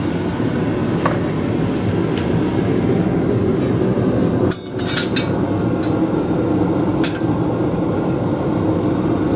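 A steady low roar of workshop noise, with about five sharp metallic clinks spread through it, the loudest just before halfway and another a few seconds later. The clinks come from the steel blade being handled in a straightening jig.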